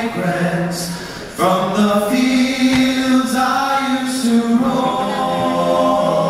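Male a cappella group singing sustained chords in close harmony into handheld microphones. The sound dips about a second in, then the voices come back in together.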